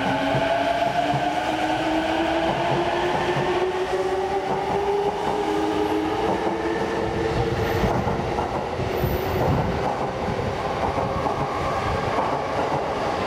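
E233-5000 series electric train accelerating away from a station: its inverter-driven traction motors whine in several tones that climb steadily in pitch for about eight seconds and then fade, over the steady rumble of the wheels on the rails.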